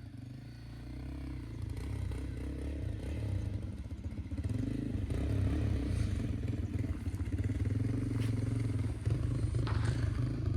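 Honda CRF250L's single-cylinder engine running off-road, growing louder over the first few seconds as the bike comes closer, with a couple of short clatters near the end.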